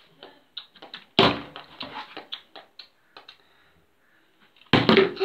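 Plastic bottle flipped and landing on a hard floor: a heavy knock about a second in, a string of small knocks and rattles, then several hard knocks near the end.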